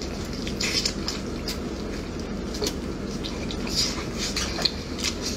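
Close, wet mouth sounds of eating stewed pig tail: scattered sucking, smacking and squelching clicks as the soft meat and skin are pulled off the bone, over a steady low hum.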